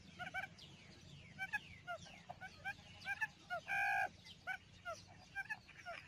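Birds chirping in many short, repeated notes, with one louder held call lasting about half a second near four seconds in.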